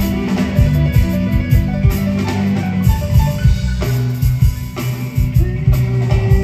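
Progressive rock band playing live: drum kit, electric guitars, bass and keyboards in an instrumental passage with a steady drum beat.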